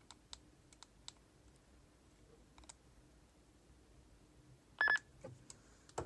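Faint clicks of a Digix DMR handheld radio's buttons being pressed and handled, then a single short electronic beep from the radio just before the end.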